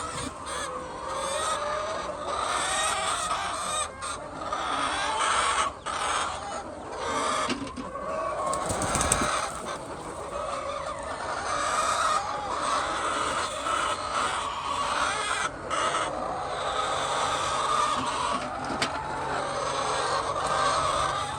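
A large flock of laying hens clucking and calling all at once, a continuous, overlapping din, with a single knock about nine seconds in.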